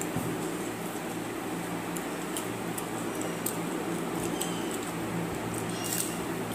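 A steady low hum, with scattered faint clicks and wet smacks of eating by hand: fingers mixing watered rice and chicken curry on steel plates, and chewing.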